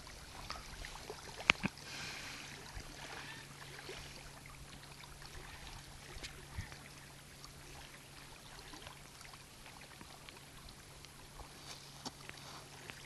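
Faint lakeshore ambience: small waves lapping against a rocky bank under a low steady hum, with one sharp click about a second and a half in and a few light clicks near the end.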